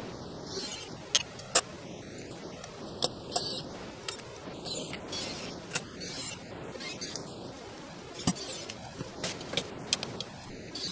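Hands handling a wooden wall barometer with a brass bezel on a workbench: scattered sharp clicks and taps with short scraping rubs at irregular moments.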